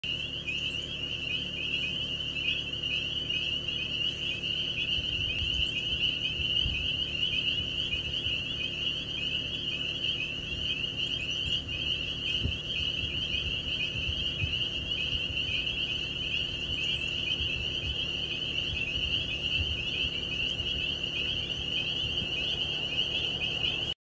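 A dense chorus of calling frogs, a steady high-pitched chorus with no break, with a few faint low thumps in the middle.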